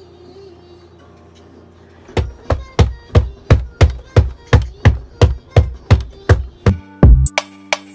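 Hip-hop music, quiet at first; about two seconds in, a fast, even drum-machine beat comes in at about three hits a second, with deep bass notes near the end.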